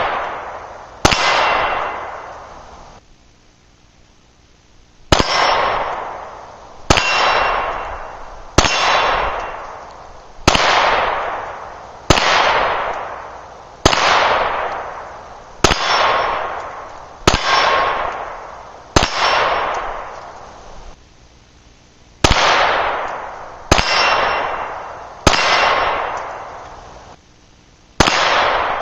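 Fourteen pistol shots from a Glock 20SF fitted with a .38 Super conversion barrel, fired one at a time every second and a half to two seconds, with two longer pauses. Each is a sharp crack followed by a long echo that fades over a second or more.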